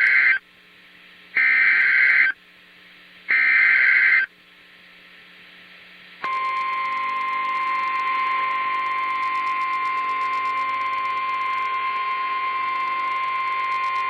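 Emergency Alert System SAME header over NOAA Weather Radio: one data burst ending at the start, then two more raspy digital bursts about a second long each, with faint radio hiss between them. About six seconds in, the steady 1050 Hz weather radio warning alarm tone starts and holds. The sequence opens a warning broadcast, here a severe thunderstorm warning.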